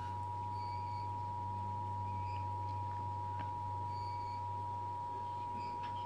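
Emergency Alert System attention signal from a television speaker: the steady two-tone alert (853 Hz and 960 Hz sounded together) held at an even level, announcing a national EAS test. A faint low hum sits underneath.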